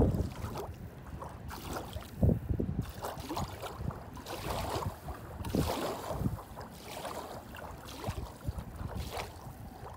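Wind rumbling on a phone microphone, with irregular rustling handling noise and a single knock about two seconds in.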